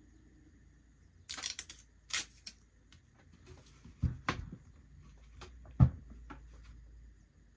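Sharp crackles and rustles of double-sided tape being handled on a sealed lead-acid battery, then a few dull knocks as the 12 V 7 Ah battery is set down and stacked onto a second one, the loudest knock a little before six seconds in.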